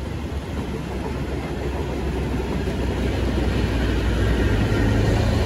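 Passenger train passing close by: a low steady hum over a rumble that grows gradually louder as the red locomotive at the rear of the train comes near.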